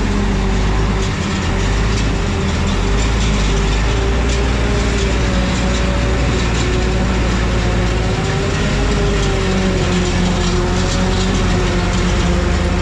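Heavy farm-vehicle engine running steadily under load, its drone wavering slightly in pitch.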